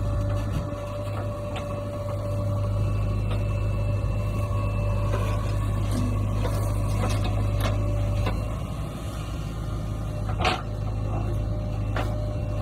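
JCB 3DX backhoe loader's diesel engine running steadily with a low hum while the backhoe digs and dumps soil, with scattered knocks and clatters; a sharp knock about ten and a half seconds in is the loudest.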